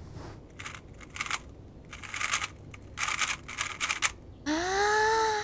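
Plastic puzzle cube being twisted: bursts of quick clicking turns for about four seconds. Near the end comes a woman's long, high whining hum, louder than the clicks.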